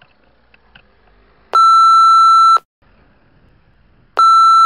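Two electronic censor bleeps, each a steady high tone about a second long, starting about 1.5 s and 4.2 s in. They cover the cyclist's shouted reaction to being cut off.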